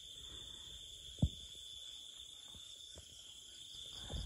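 Crickets chirping in a steady high-pitched chorus, with a single low thump about a second in.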